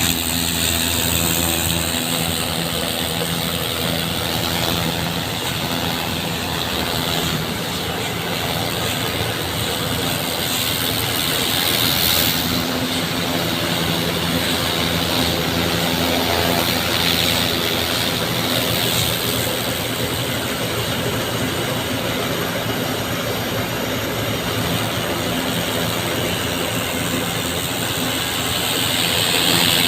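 An engine running steadily at a constant speed, with the even hiss of water jetting from a hose across the pavement, as it is flushed clean.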